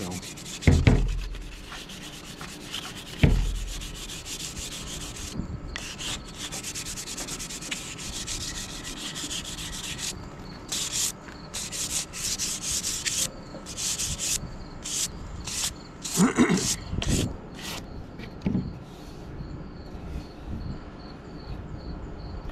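Charred hickory hatchet handle being hand-sanded with a scrap of 220-grit sandpaper. It starts as dense, rapid scratching, then turns into separate back-and-forth strokes about one or two a second. Two low knocks come in the first few seconds.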